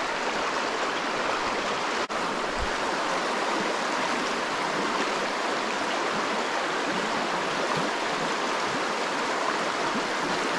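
Steady rushing of a flowing trout stream, with a brief break in the sound about two seconds in.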